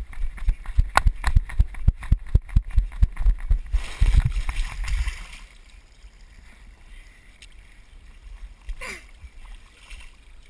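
Running footsteps on grass thud against the body-worn camera, about three to four a second. About four seconds in comes a loud hiss of a body landing and sliding on a wet plastic Slip 'N Slide, lasting about a second and a half, then quieter sliding.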